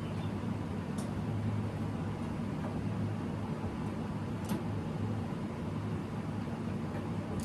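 Steady low background hum with two faint small clicks, about a second in and about four and a half seconds in.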